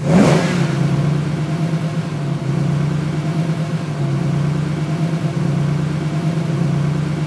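A motor vehicle's engine starts abruptly with a brief loud burst, then settles into a steady idle.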